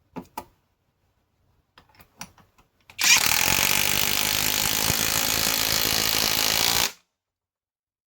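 Greenworks Pro mid-torque cordless impact wrench hammering steadily for about four seconds as it drives a large fastener, then stopping abruptly. A few faint handling clicks come before it starts.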